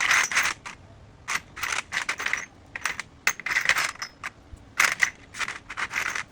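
Repeated short bursts of light clicking and rattling, like small hard plastic and metal parts being handled and knocked together, coming in quick clusters with brief pauses between.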